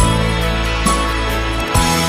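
Background music with held notes over a sustained bass and a slow, steady beat.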